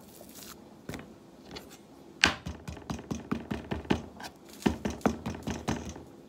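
Kitchen knife cutting raw beef steak and knocking on a cutting board: quiet at first, then from about two seconds in a run of quick, irregular knocks, several a second.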